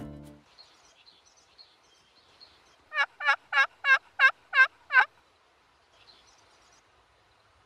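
A run of seven turkey yelps about three seconds in, evenly spaced at roughly three a second and lasting about two seconds. Faint songbird chirps can be heard around it.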